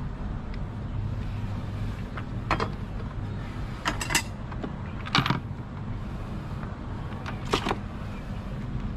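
A handful of short, sharp clicks and knocks of hard parts being handled, two of them close together near the middle, over a steady low hum.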